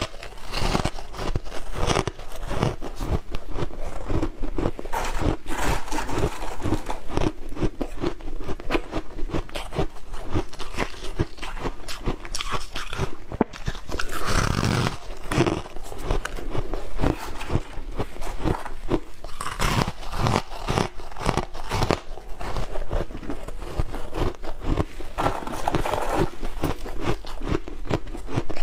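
Refrozen shaved ice being bitten and chewed: a dense, rapid run of crisp crunches, with a few louder bites along the way.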